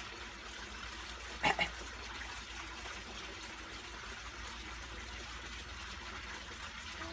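Steady background hiss, broken once about a second and a half in by a short double cough: a child's fake cough.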